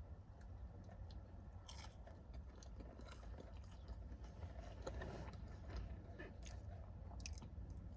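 Faint close-up chewing of a chicken tostada bowl, with a few scattered crunchy bites and small mouth clicks.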